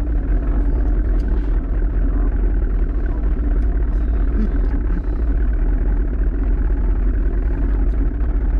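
Tiller-steered outboard motor running steadily with the boat under way, mixed with a heavy rumble of wind on the microphone.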